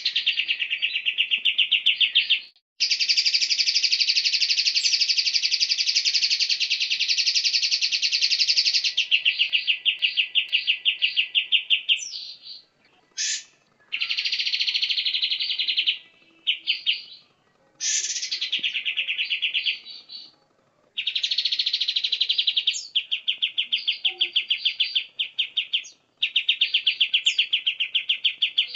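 Cage songbird song of the kind used as a masteran for training other birds: rapid, fast-repeated chattering trills in bursts of one to six seconds, with short pauses between phrases.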